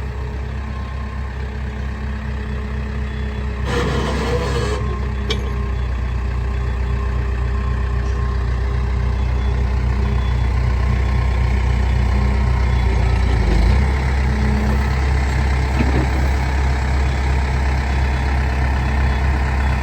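The 95 horsepower turbo diesel engine of a Case 580 Super M Series 2 backhoe loader running steadily. There is a brief burst of noise about four seconds in. The engine note then slowly rises and shifts suddenly about fourteen seconds in.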